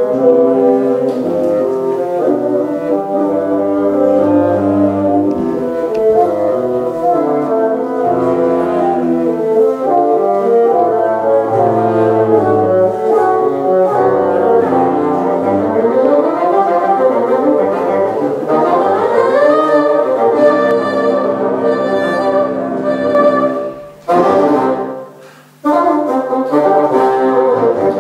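A bassoon quartet of three bassoons and a contrabassoon playing a contemporary chamber piece, with several lines moving together. In the middle the parts climb upward, and near the end the playing stops briefly before starting again.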